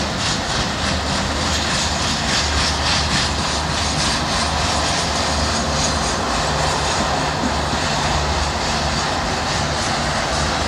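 Refrigerated boxcars of a fast freight train rolling past: a steady, loud roar of steel wheels on rail.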